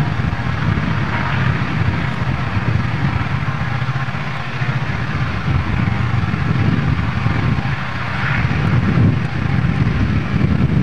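Several diesel-electric freight locomotives hauling a loaded coal train upgrade, a steady low engine rumble that carries on without a break.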